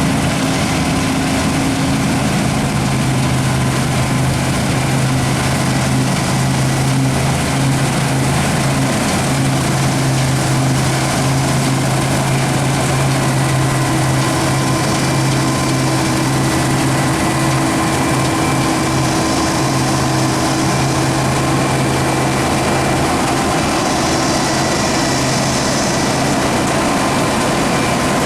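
Diesel engine of heavy harvest machinery running steadily, a constant low hum with a broad rushing noise over it.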